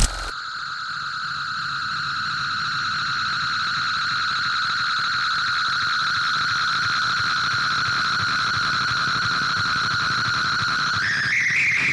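Electronic experimental soundtrack: a single high, steady synthesized tone held over a bed of hiss. Near the end it bends upward in pitch.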